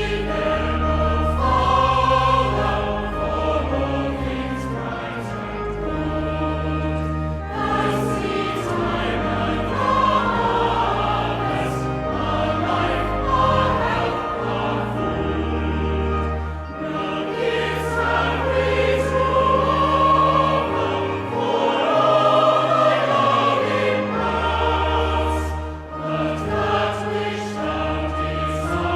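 A choir singing, with sustained low bass notes held underneath as accompaniment.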